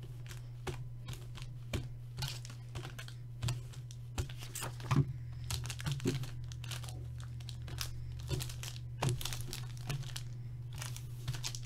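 Foil trading-card pack wrappers crinkling and rustling as the packs are handled and stacked, with irregular small clicks. A steady low hum runs underneath.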